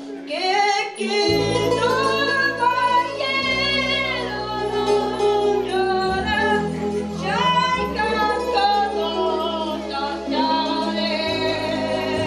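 A woman singing a melody with vibrato into a microphone, over an accompaniment of held chords and bass notes that change every couple of seconds.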